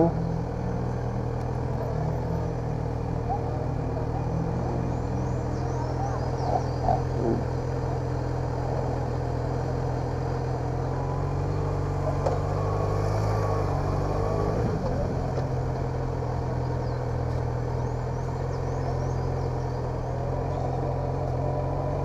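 Yamaha XJ6's inline-four engine running steadily at low speed. The note rises a little around the middle of the stretch.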